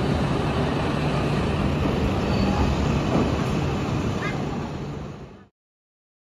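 Steady mechanical hum and rumble of an E6 series Shinkansen standing at the platform while its split nose cover closes over the coupler. The sound fades out and stops about five and a half seconds in.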